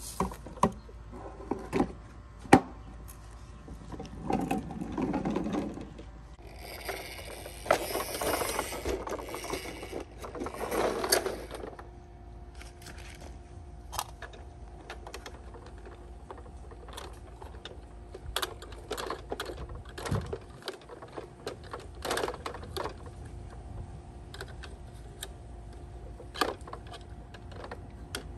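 Plastic clicks and rattles from toy garbage trucks and bins being worked by hand. A longer rattling rush comes near the middle, typical of a bin's load spilling into the truck.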